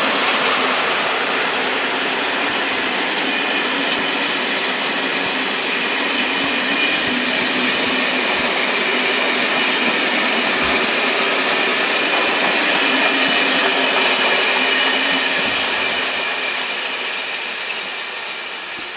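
Passenger train hauled by an electric locomotive passing close by: a loud, steady rolling noise of wheels on rails with a faint high squeal over it, fading over the last few seconds as the coaches go by.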